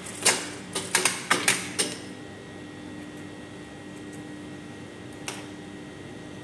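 Sharp clicks and clacks from work at a Brother industrial sewing machine: about seven in quick succession in the first two seconds, one more near the end, over a steady hum.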